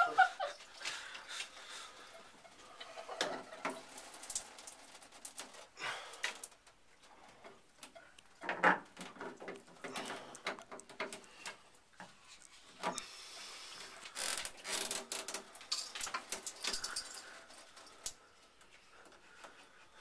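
Handling noises from fitting a handheld shower head and its metal hose to the wall mount: scattered clicks and knocks of metal and plastic parts, busier with some hiss in the second half.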